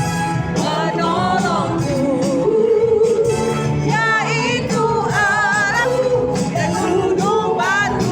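Music with a solo singing voice: held notes with strong vibrato and quick runs up and down in pitch, over continuous accompaniment.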